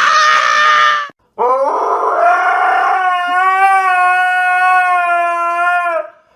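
A dog howling: one howl ends about a second in, then after a brief pause a long, steady howl holds one pitch for about four and a half seconds before stopping near the end.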